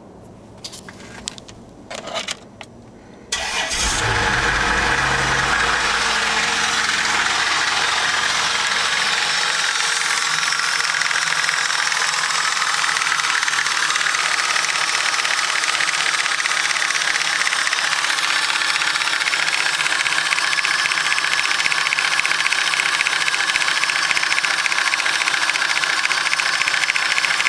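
A few clicks, then an Isuzu 3.5L 6VE1 V6 engine starts about three seconds in. It runs faster for a few seconds and settles into idle with a loud, rapid knock. The owner suspects rod knock and has ruled out the timing belt tensioner by replacing it.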